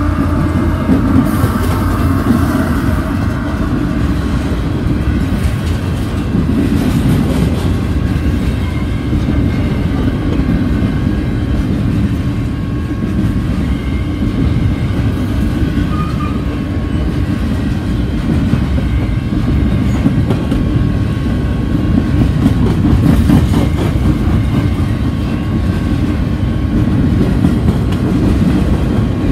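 A Canadian National freight train passing close by: GE ET44AC and ES44AC diesel locomotives go by first, then a long string of covered hopper cars rolls past. There is a steady rumble and wheels clacking over the rail joints.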